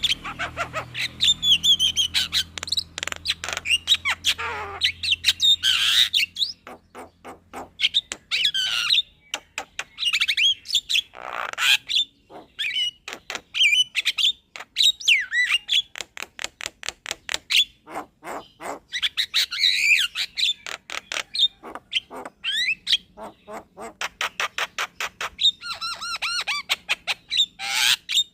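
Javan myna singing a long, rolling song: fast runs of sharp clicks mixed with harsh chatter and gliding whistled notes.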